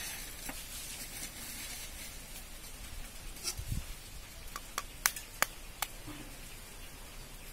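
Hands handling an egg over a large aluminium mixing bowl: faint handling noise, a dull thump a little past halfway, then a few sharp clicks close together.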